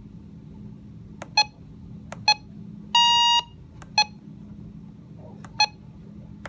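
Weather radio receiver beeping as its buttons are pressed: short electronic beeps, mostly in quick pairs, and one longer beep about three seconds in, over a steady low hum.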